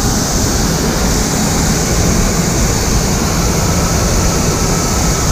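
Loud, steady rushing noise of a fire hose stream spraying water onto a burning LPG (propane) tank, mixed with the sound of the gas fire itself.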